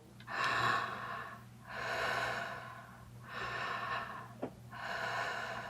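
A woman's heavy, drawn-out breathing, a horror sound effect: four long, hoarse breaths of about a second each, at an even slow pace, with a faint click about four and a half seconds in.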